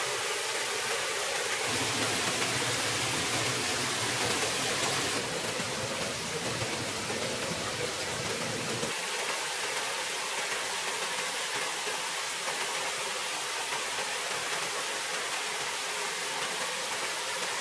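A small forest stream running and splashing over rocks in a little cascade, a steady rushing hiss. It grows fuller and deeper about two seconds in and thins again about nine seconds in.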